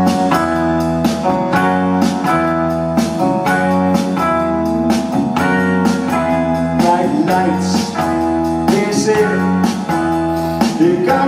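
Live blues-rock band playing an instrumental intro: electric guitars, bass and keyboard over a steady drum beat.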